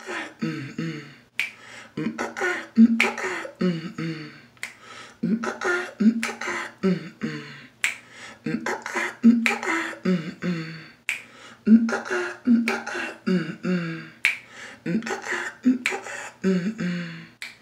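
A cappella singing without clear words, in short bending phrases of melody, with sharp snaps scattered among them.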